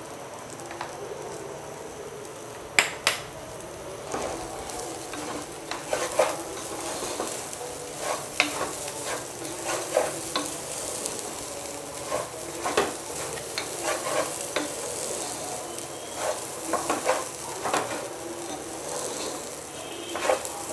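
Wooden spatula stirring raw rice and green peas as they fry in a metal pot, with a steady low sizzle and many short scrapes and taps of the spatula against the pot. The rice is being toasted before water goes in for polao. The stirring gets busier about four seconds in.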